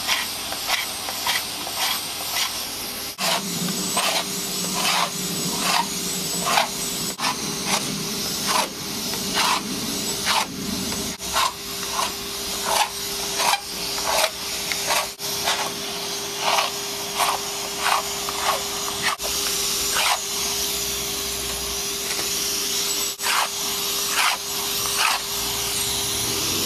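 Vacuum cleaner running steadily with a constant hum and hiss, under repeated rasping strokes of a ProScraper's tungsten carbide blade scraping antifouling paint off a boat hull, about three strokes every two seconds. The hollow scraper is hooked to the vacuum, which draws off the paint dust as it scrapes.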